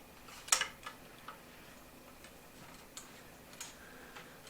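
A few light clicks and taps at irregular intervals, the sharpest about half a second in, then fainter ones, over a quiet room.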